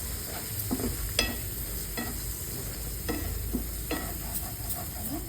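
A spoon stirring and scraping in a pan as besan roasts in hot oil with whole spices, over a low sizzle. The spoon clicks sharply against the pan about once a second.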